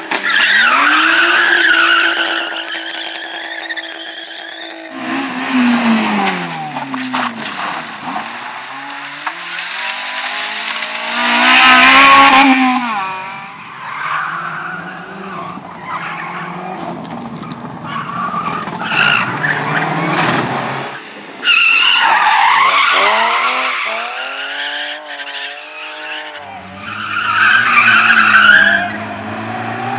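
Slalom cars driven hard, their engines revving up and falling away through gear changes, with tyres squealing through the turns several times. The sound jumps abruptly about two-thirds of the way through.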